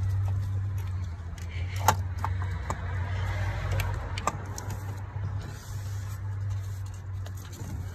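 Metal tools and parts clinking in a car's engine bay as a starter motor is worked loose: a handful of sharp metallic clinks about two to four seconds in, over a steady low hum.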